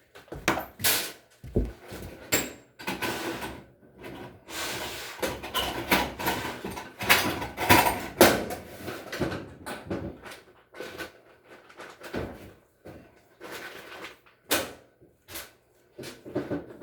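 Repeated knocks, clicks and scraping of hard parts being handled and moved, denser and louder in the middle.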